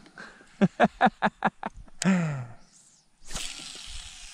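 A man's voice without words: a quick run of about six short pulses, then a long falling 'ohh'. About three seconds in, a steady rush of hiss starts.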